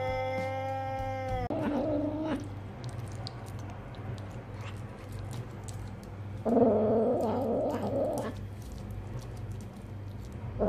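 A cat's long, steady yowl cuts off about a second and a half in. Then a hairless cat growls over its food, in a short spell just after and a longer, louder one in the middle.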